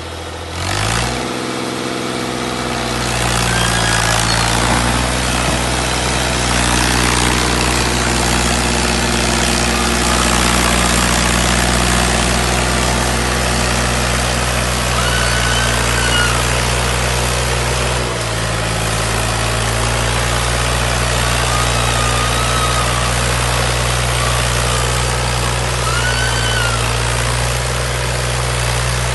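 Large diesel engine of heavy farm machinery coming up to speed in the first second or two, then running steadily at a constant pitch, with one brief drop in speed past the middle.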